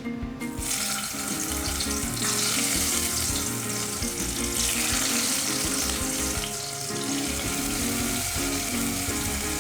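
Spiced potato slices frying in hot oil. A sizzle starts suddenly about half a second in as they go into the oil, and then keeps on steadily.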